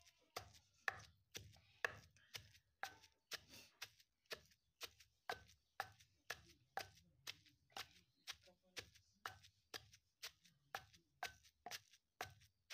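Pestle pounding in a stone mortar at a steady pace of about two strikes a second, crushing garlic and green herbs into a paste.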